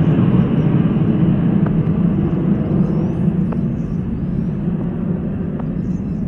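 Four-engine jet aircraft passing high overhead: a steady low rumble that slowly fades as the plane draws away.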